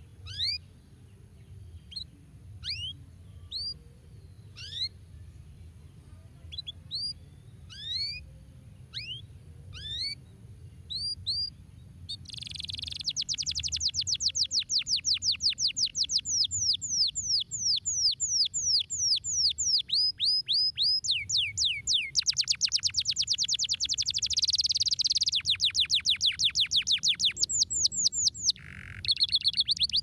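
Domestic canary singing: scattered single chirps about a second apart, then, about twelve seconds in, a fast continuous rolling trill of rapid descending notes, broken once briefly near the end.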